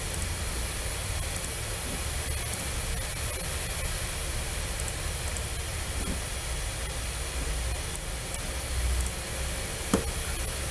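Steady hiss and low hum of the recording's background noise, with a few faint short clicks, one of the clearest about ten seconds in.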